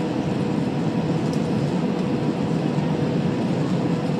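Airbus A320 cabin noise heard from a window seat in flight: a steady rush of engine and airflow noise with a faint constant hum running through it.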